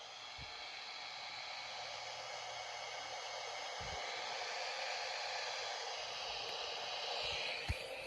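Steady radio static hiss from a NOAA Weather Radio receiver tuned to WNG655, a station that is on the air but carrying no voice: dead air. The hiss grows slightly louder over the seconds, with a few faint low thumps near the end.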